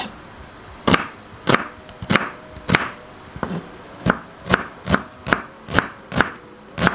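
Chef's knife dicing a shallot on a plastic cutting board: a run of about a dozen sharp chops that come a little quicker, about two a second, in the second half.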